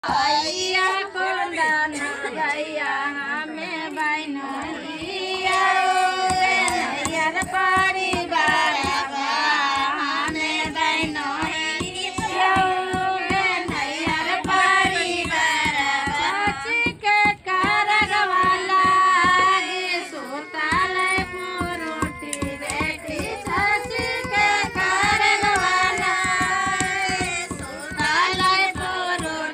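A group of women singing a traditional haldi wedding folk song together, the melody wavering and unaccompanied, with quick clicks and knocks running underneath.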